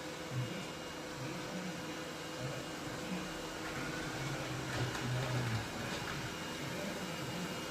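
Ecovacs robot vacuum cleaner running with a steady hum and a low, uneven rumble.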